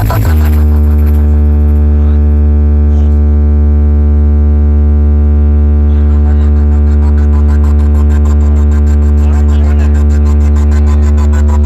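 A loud, steady deep bass drone held for several seconds, with a faint fast pulse above it: a bass passage in an electronic sound-check track for testing big speaker boxes.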